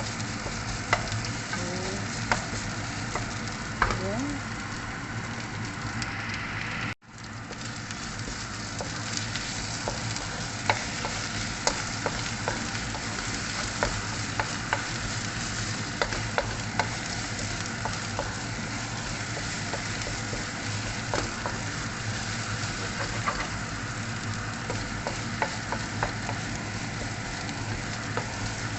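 Oil sizzling steadily in a frying pan with curry leaves in it, with frequent sharp ticks and taps of stirring against the pan. The sound cuts out for a moment about seven seconds in.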